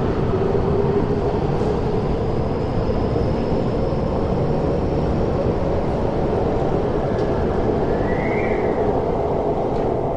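MTR Tseung Kwan O Line metro train pulling out of the platform behind glass screen doors: a steady rumble of wheels and traction motors with a steady hum, and a brief rise-and-fall squeal about eight seconds in.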